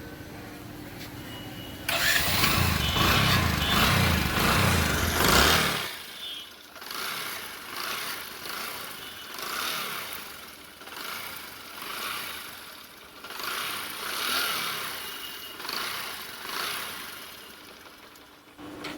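Bajaj Discover 100 single-cylinder four-stroke motorcycle engine started about two seconds in and run, loud at first, then swelling and fading about every two seconds. It makes a bad noise like a loose piston, which the mechanic puts down to engine oil not circulating: the oil pump is not lifting oil to the head, and the engine is overheating.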